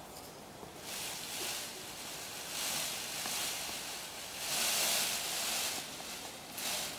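Indian peacock shaking its fanned train and wings in courtship display, a rustling hiss of quivering feathers that comes in three surges, each a second or two long.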